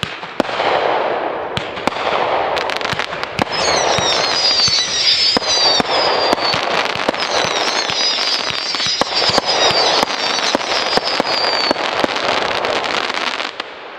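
Consumer 36-shot fireworks cake firing its finale: shots go up with whistling tails, several whistles overlapping and falling in pitch, while the stars burst into dense crackling. The whistles stop about twelve seconds in and the crackle dies away near the end.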